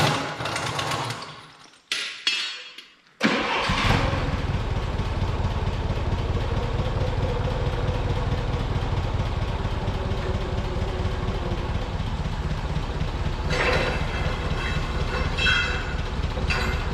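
A forklift engine catches about three seconds in, then idles steadily.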